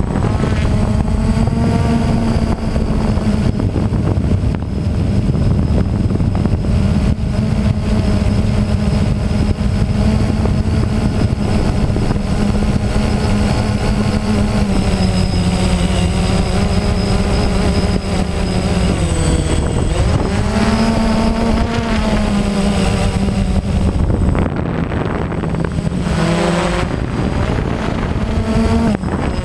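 Motor and propellers of a small camera-carrying aircraft running steadily in flight, a continuous hum whose pitch dips and rises about two-thirds of the way in and again near the end as the throttle changes.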